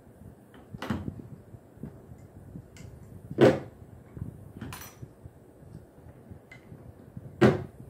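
Hand pop-rivet gun being squeezed stroke by stroke on a long rivet set into a plastic kayak hull, giving a few sharp clicks. Two much louder snaps come about halfway through and near the end.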